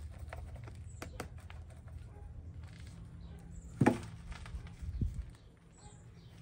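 Potting soil being handled and pressed into a plastic flowerpot: scattered soft crackles and rustles, with one sharp louder knock about four seconds in.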